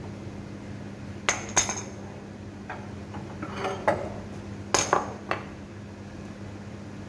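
A hammer tapping on the steel mounting plate of a vertical electric motor: a series of sharp metallic knocks with a short ring, in small groups between about one and five and a half seconds in.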